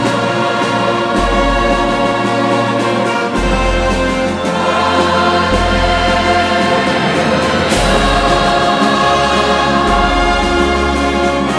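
Choral music: a choir singing sustained chords over instrumental backing, with a deep bass note changing about every two seconds.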